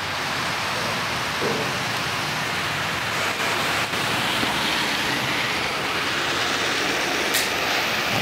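HO scale model train rolling along the track close by, a steady rushing noise.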